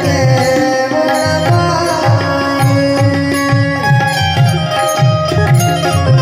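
Tabla playing a steady rhythmic pattern, its deep bass-drum strokes prominent, under held melody notes from a bulbul tarang (Indian banjo) in an instrumental passage.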